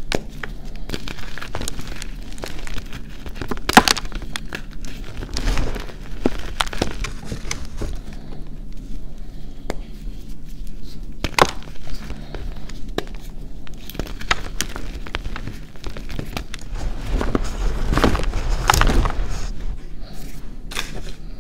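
Hands crushing and crumbling reformed gym chalk blocks in loose chalk powder: irregular dry crunches and crackles, with a few louder clusters of crunching.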